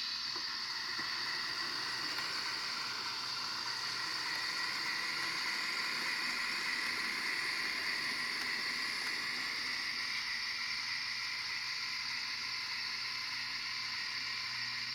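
Bemo HOm-scale Rhaetian Railway model electric locomotive with an ESU LokSound decoder running: a steady hissing, whirring locomotive running sound from its small onboard speaker as the train moves.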